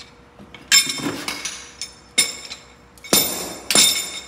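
Steel striking steel: several sharp metallic clinks that ring briefly, the four loudest spread about a second apart, as tools and parts knock against the bus's front hub and steering knuckle.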